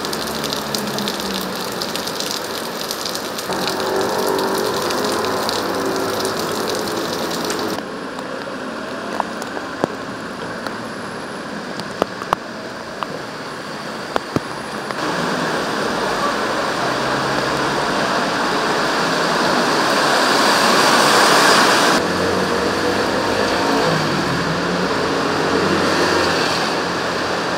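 Heavy rain falling on a city street and pavement, mixed with cars passing on the wet road, the ambience changing abruptly several times. A few sharp ticks stand out around the middle.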